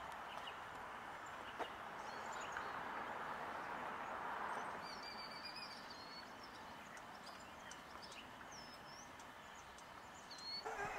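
Faint outdoor ambience: a steady hiss of distant background noise with a few faint, short bird chirps about halfway through and again near the end. One soft click comes about a second and a half in.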